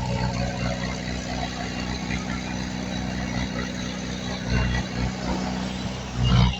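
Heavy diesel engine of earthmoving machinery running steadily, with a loud low thump about four and a half seconds in and another near the end.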